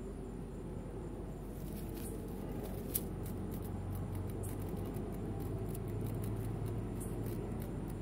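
Steady low rumble with a thin, steady high tone above it, and scattered light rustles and crackles in dry leaf litter as a cat paws about, with one sharp click about three seconds in.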